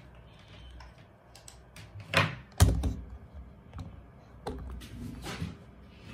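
Handling noise: a few scattered knocks and clicks of hard objects being moved about. The sharpest and loudest click comes about two and a half seconds in.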